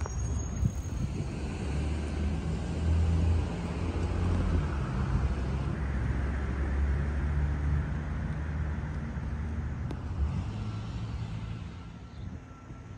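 Vehicle driving along a town street: a steady low engine and tyre rumble. A faint high steady tone comes in near the end.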